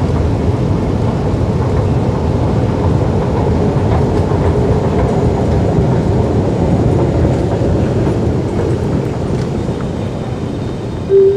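Steady low rumble and hiss of an underground MRT station, with a faint held hum through the middle. Right at the end, electronic chime notes begin.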